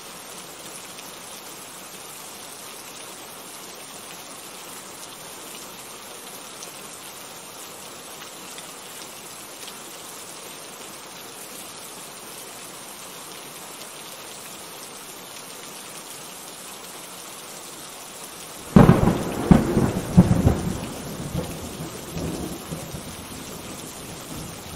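Steady rain falling, then, about three quarters of the way in, a sudden loud crack of thunder that rolls on for several seconds and fades back into the rain.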